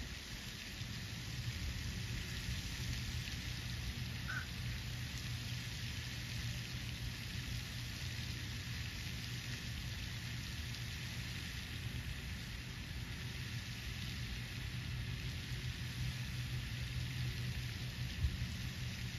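Steady outdoor hiss with a low hum underneath, and one short, high chirp about four seconds in.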